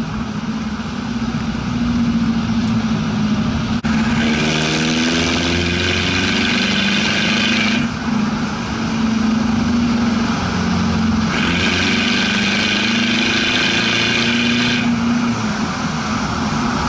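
Ford Ranger's WL-T turbodiesel heard at the tailpipe while driving on the road. It pulls hard twice, from about four seconds in and again past the middle, easing off briefly between the pulls. It is loaded enough to blow black smoke.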